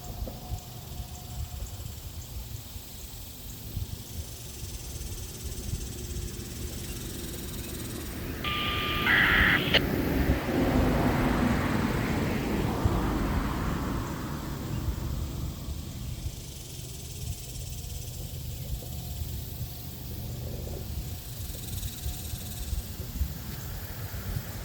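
Outdoor ambience with a steady low wind rumble on the microphone. About eight seconds in there is a brief, high, steady tone lasting about a second. Right after it comes a louder rushing swell that builds and fades over about five seconds.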